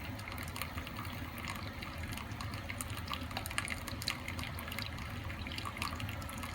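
Cuisinart single-serve K-cup coffee maker pouring coffee into a cup: a steady trickle of liquid over a low, steady machine hum. This is the faulty second brew cycle, which restarts after the first and overfills a 6-ounce pour to about 12 ounces.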